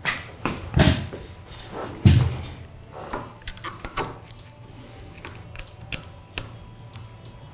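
Tools and metal hub parts being handled during bicycle hub reassembly: irregular clicks and knocks, with two louder thumps in the first couple of seconds and lighter scattered clicks after.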